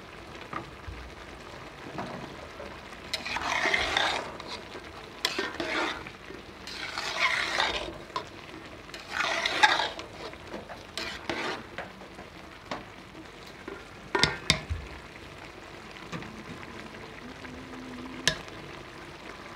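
Metal spatula stirring and turning rice in a metal pot, in several scraping sweeps with a few sharp knocks against the pot, as the last of the cooking water dries off before the rice is covered for dum.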